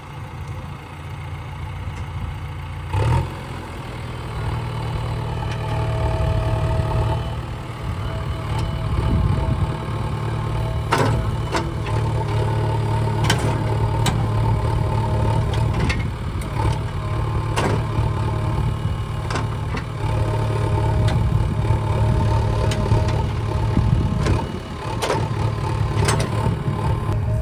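Heavy diesel engine running steadily under varying load, with several sharp knocks or clanks spread through it.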